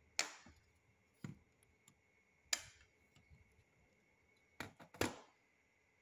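Lego-built toy belt buckle being handled: hard plastic bricks clack and knock in short, separate clicks, one at a time with pauses between, then three in quick succession near the end.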